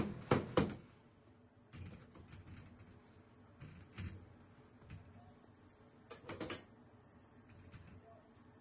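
Metal loaf pan knocking and clicking against a wire cooling rack and stainless steel counter as a baked loaf is turned out of it. Three sharp knocks come in quick succession at the start, followed by scattered lighter taps and clicks.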